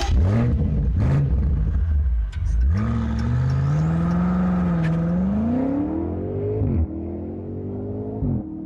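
BMW M5 F90's twin-turbo V8 revved while standing: two quick blips, then a rev held up for about four seconds, a drop, and one more shorter rev that falls away near the end.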